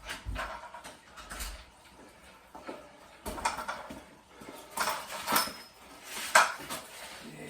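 A series of irregular knocks and clicks, several of them sharp, with quieter gaps between.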